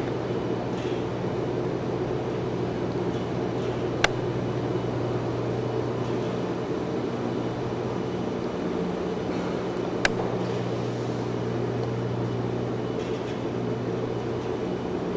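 Steady low machinery hum, with two short sharp clicks, about four and ten seconds in.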